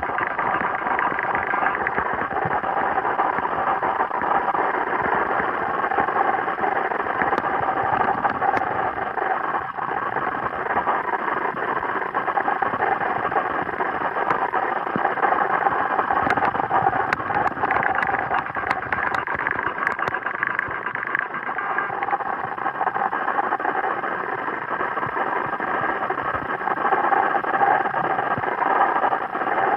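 Steady whirring underwater noise picked up by a submerged camera, with a few faint clicks now and then.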